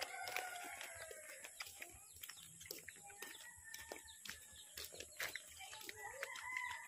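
Faint rural outdoor ambience with distant animal calls: a few drawn-out pitched calls near the start and again near the end, with scattered light ticks between.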